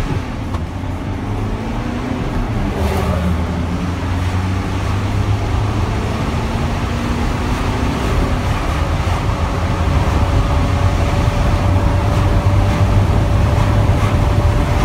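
Mercedes Sprinter 516 CDI's four-cylinder turbodiesel accelerating hard, heard from inside the cab. The engine note rises in pitch within each gear and drops back at each upshift as the van works from second up to sixth gear.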